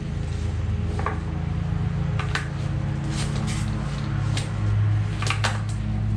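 Scattered light clicks and knocks as a ratchet strap and its hardware are handled and worked around a ceramic grill, over a steady low hum.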